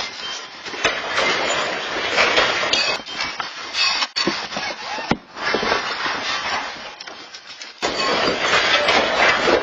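Rattling, clattering and crashing of objects shaken and knocked down by a strong earthquake, a dense din full of sharp knocks, broken by abrupt cuts a few times.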